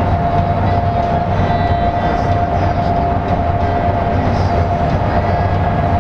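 Inside a LiAZ-5292 bus cruising at highway speed: a steady drone of engine and tyres on the road, with a constant high whine over it.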